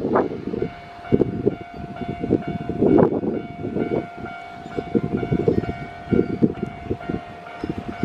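A Keio Line electric train passing through a level crossing, its wheels thudding irregularly over the rail joints, while the crossing's warning bell rings steadily above it.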